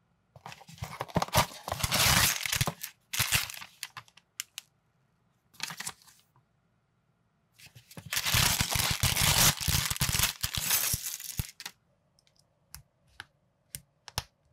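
A small cardboard toy box being torn open, then a clear plastic bag of building-block parts torn and crinkled. Near the end come a few light, separate plastic clicks as minifigure pieces are snapped together.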